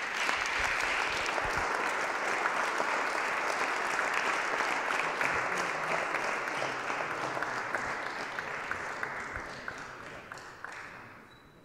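Audience applauding, a dense even clapping that holds steady and then dies away near the end.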